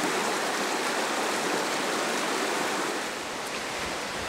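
Stream water rushing steadily over rocks, easing a little about three seconds in.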